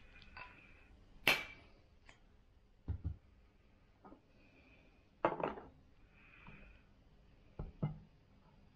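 Cut-glass cup and decanter being handled and set down on a wooden tray: a series of separate clinks and knocks, the sharpest about a second in, a cluster about five seconds in and two knocks near the end.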